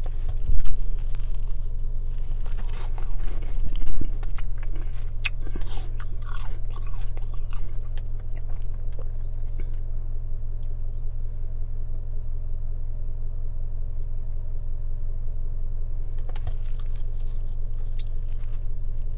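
Close-up crunching and chewing of freezer frost and ice, dense for the first several seconds, then a pause of about eight seconds, then crunching again near the end. A steady low hum from the car runs underneath.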